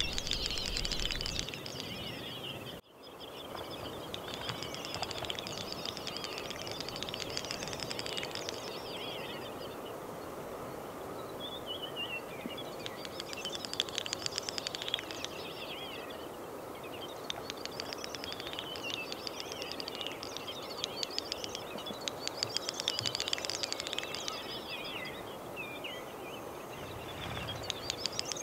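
Great snipe lek display: repeated bouts of rapid bill-clicking running into a bubbling, twittering warble, a new bout every few seconds.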